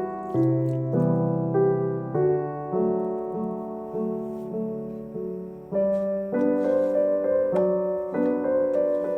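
Background piano music: a gentle solo piano piece playing steady chords and melody notes.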